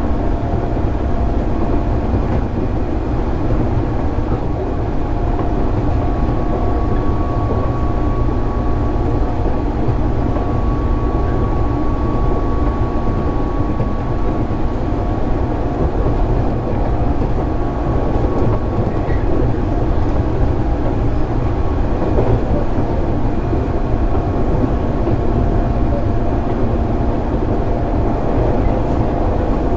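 JR East 205 series 600-subseries electric multiple unit heard from on board while running at steady speed: a continuous low rumble of wheels on rail, with a steady hum from the running gear that holds one pitch.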